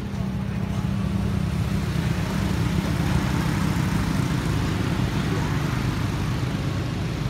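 Road traffic from passing motorbikes and motorbike-drawn tuk-tuks: steady engine and tyre noise that grows a little louder about a second in.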